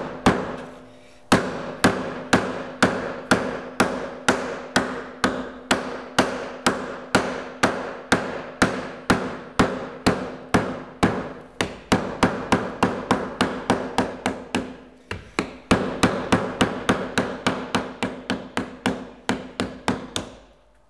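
A soft-faced mallet repeatedly strikes a sheet-metal repair panel laid over a leather sandbag, about two to three blows a second, each with a short metallic ring. It stops briefly about a second in and again about fifteen seconds in. The blows are hand-forming the curve into the A-pillar-to-roof panel.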